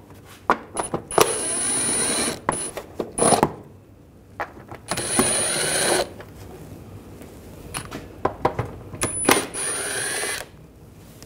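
Cordless impact driver with a 10 mm socket spinning off the plastic nuts of a car's underbody shield: three runs of about a second each, with a few short blips of the trigger in between.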